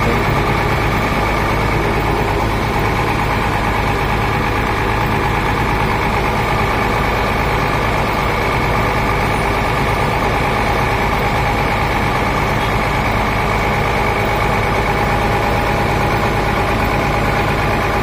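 Mercedes-Benz OH1521 bus's diesel engine idling steadily.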